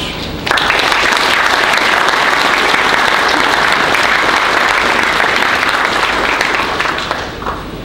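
Audience applauding: dense clapping that starts about half a second in, holds steady, and dies away near the end.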